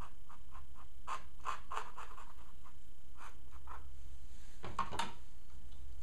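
Paintbrush stroking and dabbing on wet watercolour paper: a run of short scratchy strokes, then a louder double stroke about five seconds in, over a steady low hum.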